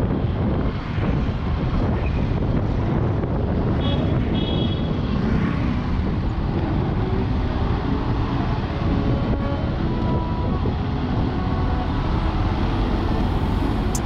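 Steady rumble of a moving vehicle: engine, tyre and wind noise. A few brief, faint high tones come about four seconds in.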